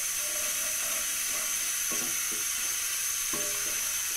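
Ghee sizzling as it melts and heats in a wok, with a steady hiss, stirred with a wooden spoon that gives a few soft scrapes. A thin, steady high-pitched whine runs underneath.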